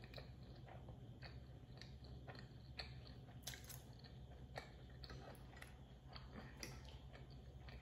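Quiet, close-miked chewing of a mouthful of creamy Parmesan-crusted chicken pasta, with scattered soft wet mouth clicks over a faint steady low hum.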